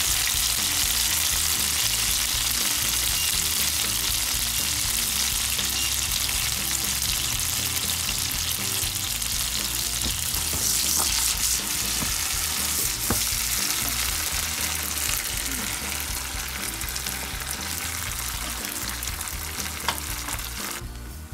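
Bacon, olive oil and tomato sauce sizzling in a frying pan: a steady hiss that slowly dies down, with a few light clicks.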